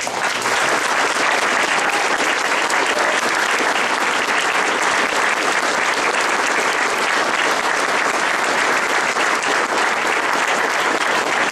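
A crowd applauding loudly and steadily, a dense wash of many hands clapping that starts abruptly and sometimes rises into cheers.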